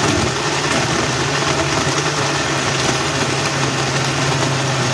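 Countertop jug blender running steadily at full speed, churning a milky pineapple drink mix with ice cubes in it.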